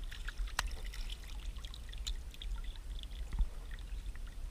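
Shallow marsh water splashing and trickling as a hooked traíra is handled and lifted out of the weeds, with scattered small drips and a couple of sharp knocks.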